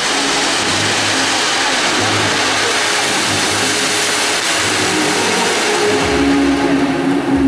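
Pyrotechnic fountains (gerbs) spraying sparks with a loud, steady hissing rush. The hiss thins out about six seconds in.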